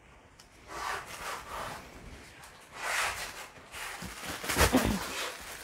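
Rustling of a jamdani sari's fabric as it is unfolded and spread out by hand, in a few swishes.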